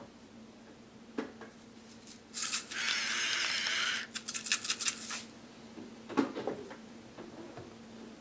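Salt and pepper being put on fried eggs: a rasping hiss for about a second and a half, then a quick run of shakes. A light knock follows about six seconds in.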